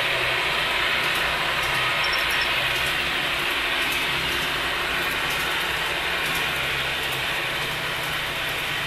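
HO scale model auto rack train rolling over the track: a steady rattling rush of small metal wheels on rail, with a low hum that stops about seven seconds in. It fades slightly as the train passes.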